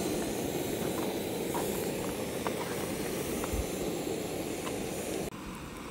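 MSR Pocket Rocket Deluxe gas canister stove burning under a pot with a steady hiss and a few faint ticks. The hiss stops abruptly about five seconds in, leaving a quieter background.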